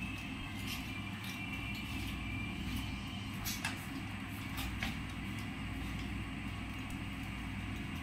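Steady low background rumble with a few faint clicks, about three and a half seconds in and again near five seconds, from an Alexandrine parakeet pecking at fruit on the wire floor of its cage.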